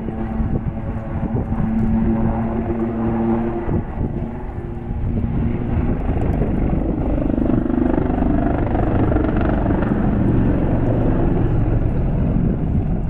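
Two display helicopters flying overhead. Their rotors and turbines make a steady drone, with a held tone for the first four seconds or so, then a broader, noisier rotor sound.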